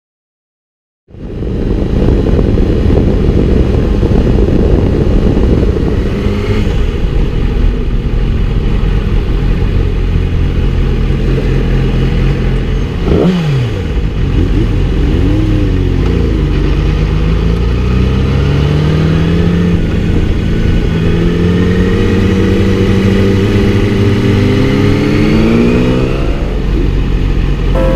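Yamaha R6's inline-four engine heard close up from a bike-mounted camera while riding. It cuts in about a second in, and its pitch rises steadily over the last several seconds as the bike accelerates.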